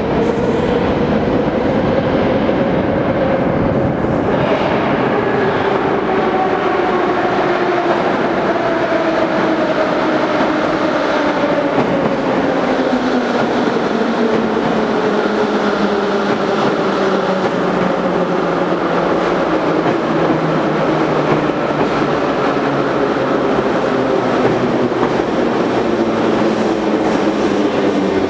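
81-717/714 metro train arriving at a station platform: the wheels run loudly on the rails, and a whine of several tones falls steadily in pitch as the train slows.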